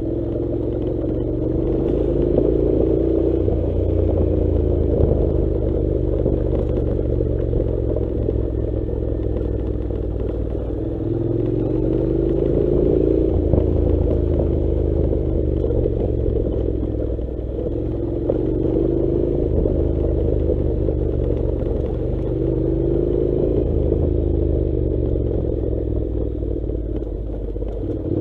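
Honda NC700's 670 cc parallel-twin engine running as the motorcycle is ridden off-road, its pitch rising and falling with the throttle, with a brief drop about eleven seconds in.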